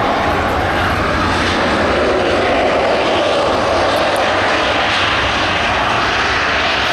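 Jet airliner engines running loud and steady, an even rushing roar with no break.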